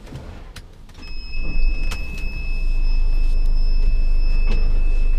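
Mercedes-Benz Sprinter 315 CDI's four-cylinder diesel engine starting, heard from inside the cab: from about a second in it cranks and catches, then settles into a steady idle. A thin, steady high tone runs alongside from the moment it starts.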